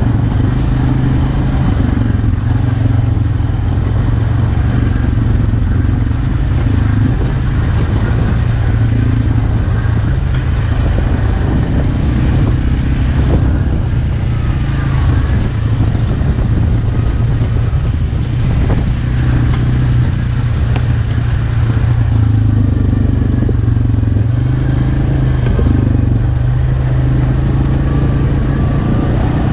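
Arctic Cat Alterra 450 ATV's single-cylinder engine running steadily under way, with tyre noise from the dirt and gravel track.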